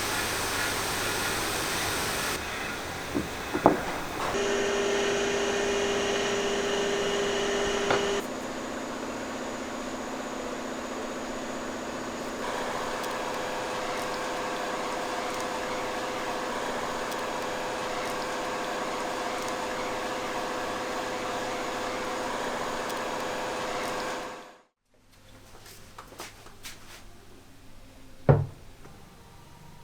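Electric workshop machines running steadily. Their hum changes pitch abruptly a few times, at edits, then cuts off near the end. After that comes a single sharp knock.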